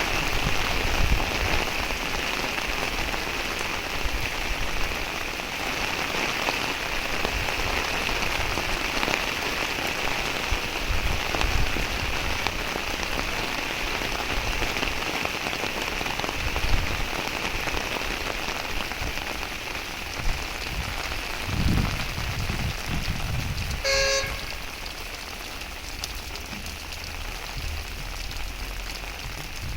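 Heavy rain falling steadily, a constant hiss. About two-thirds of the way through comes one short toot.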